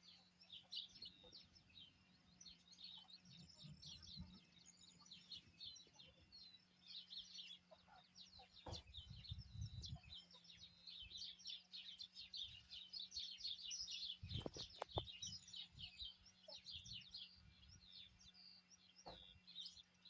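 Many small birds chirping busily and without pause, with a faint steady low hum. Two brief low thumps come about halfway through and again about two-thirds of the way in.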